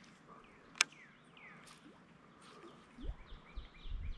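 Birds calling: a few quick falling chirps, then a fast run of short repeated notes near the end. There is a single sharp click about a second in, and low rumbling thumps in the last second.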